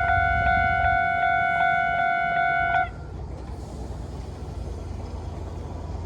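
Japanese railway level-crossing warning bell, the electronic kind, ringing at a fast rate of about three strokes a second, then stopping abruptly a little under three seconds in as the crossing clears. A low background rumble remains.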